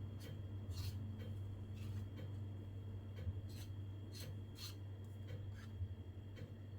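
Faint light scrapes and small taps of kitchen utensils being handled, a stroke every half second to a second, over a steady low hum.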